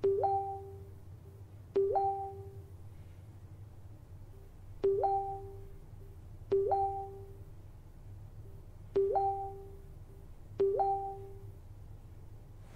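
Chat-app message alert sound played six times, once for each new text bubble: each is a click followed by a short tone that glides up to a higher note. A faint steady low hum runs underneath.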